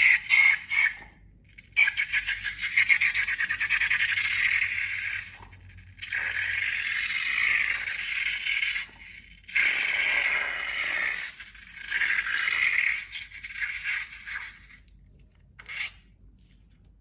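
Close-up crackly, scraping handling sounds of slime being worked, made of many fine rapid clicks, in several spells of a few seconds with short pauses between them.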